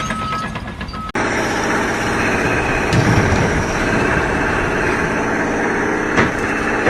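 A heavy vehicle engine running with a loud, steady rumble. It starts abruptly about a second in.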